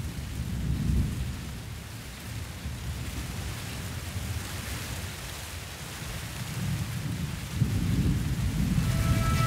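Thunder rumbling low and long, swelling about a second in and again over the last two seconds, over a steady hiss.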